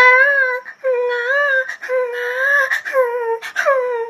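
A woman imitating a child crying: a run of high wailing cries, each under a second long, one after another with short breaks.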